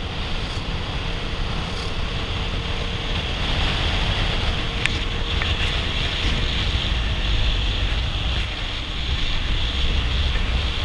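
Wind rushing over a camera microphone on a moving motorcycle, a steady blustery noise with the engine and road rumble low underneath.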